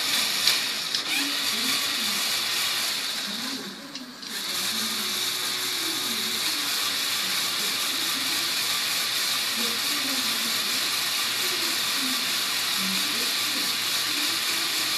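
LEGO Technic electric motors and gear train spinning the model car's wheels at speed, a steady high whirring grind. It sags and drops out briefly about four seconds in, then picks up and runs steady again.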